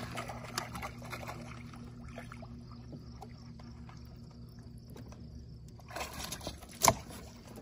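Splashing water as a shot fish is hauled in on a bowfishing arrow line beside an aluminium jon boat, over a steady low hum. Near the end come a few knocks and then one loud thump.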